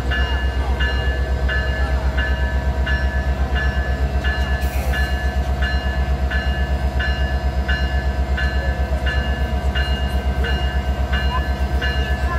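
Diesel locomotive idling up close, its engine giving a steady, fast-pulsing low throb. A short ringing tone, like a bell, repeats about every three-quarters of a second on top of the engine.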